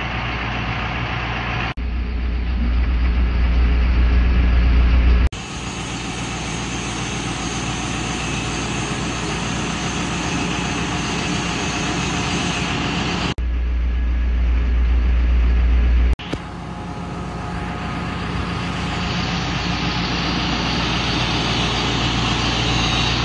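Self-loading concrete mixer's diesel engine running steadily, slowly growing louder within each stretch, with abrupt jumps in the sound where clips are cut together.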